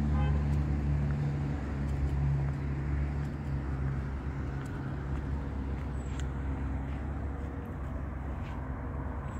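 An engine running at a steady idle, a low hum that slowly fades.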